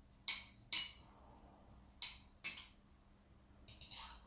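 A spoon clinking against a glass jar as chili sauce is scooped out: two pairs of short, ringing clinks, then a softer one near the end.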